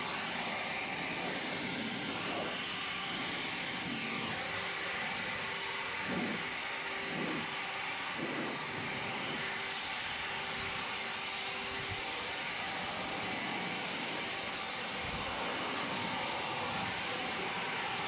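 Pressure washer spraying: a steady, even hiss of the water jet.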